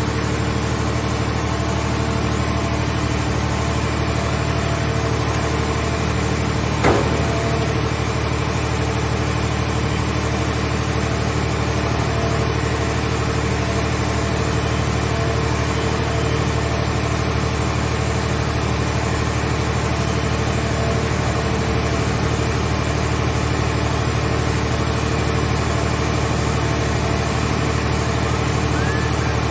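Engine of a mobile car-body baler running steadily, with one sharp knock about seven seconds in.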